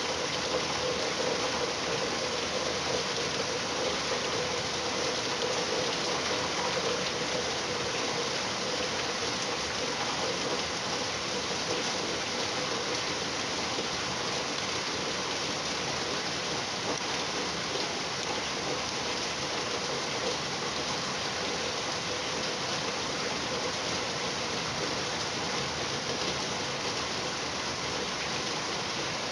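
Steady rain falling, an even rushing hiss of drops on surfaces.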